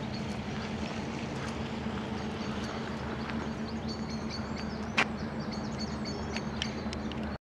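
Outdoor ambience by a canal: a steady low mechanical hum with high bird chirps over it and one sharp click about five seconds in, cutting off suddenly near the end.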